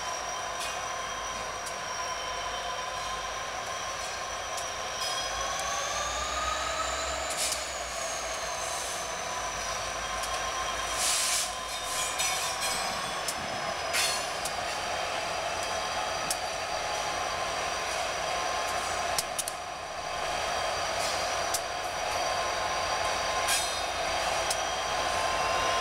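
Two Conrail diesel locomotives heading a coal train passing slowly, with a steady high whine that bends up and back down about seven seconds in, and scattered sharp clacks from the wheels.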